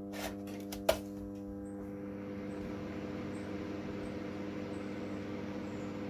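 Microwave oven transformer humming steadily under a heavy short-circuit load, a mains hum with several overtones, as its cable secondary carries hundreds of amps and the terminal joint glows red. A sharp click sounds about a second in, and from about two seconds an airy hiss joins in, a fan blowing the fumes of melting insulation away.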